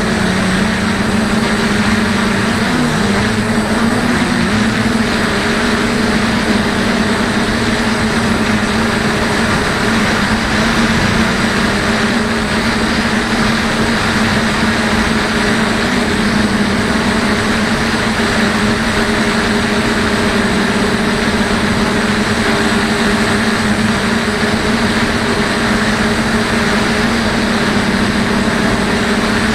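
DJI F450 quadcopter's electric motors and propellers humming steadily in flight, heard from the camera on board, over a steady hiss. The pitch dips and wavers briefly a few seconds in.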